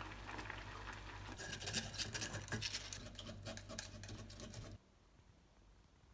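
A spoon scrapes and clicks against a small mesh strainer as miso is worked through it into a simmering pot, over a steady low hum from the induction hob. The sound stops abruptly about two-thirds of the way through, leaving faint room tone.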